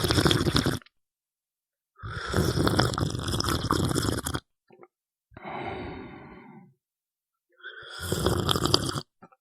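A person snoring: loud rattling snores alternating with a quieter breath out, in a slow repeating cycle.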